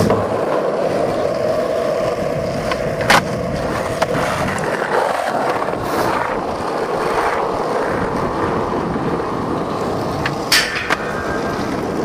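Skateboard wheels rolling on rough asphalt, a steady grinding rumble. It is broken by a few sharp clacks spaced a few seconds apart.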